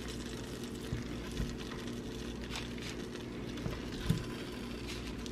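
Light butter and oil sizzling faintly in a stainless steel stock pot as chicken apple sausages are laid in to brown. A few soft knocks come as the sausages go in, over a steady low hum.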